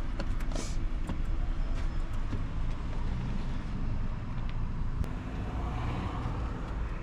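Low, steady rumble of car traffic and idling engines, with a few faint clicks and taps as burgers and their paper wrapping are handled on a wooden board.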